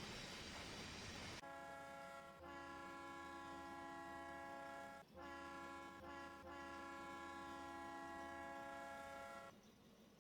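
Pennsylvania Railroad steam locomotive whistle blowing a chord in four blasts of uneven length, the first short, with brief breaks between them. Before it, for about the first second and a half, there is a steady rushing noise that stops abruptly.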